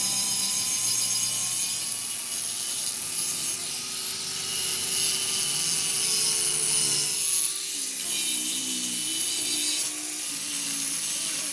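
A metalworking tool running steadily with several high whining tones, its lower tones shifting about seven seconds in.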